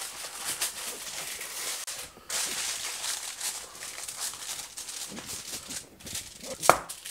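Aluminium foil crinkling as it is folded and crimped over the rim of a foil loaf tin, in quick irregular crackles, with a short knock near the end.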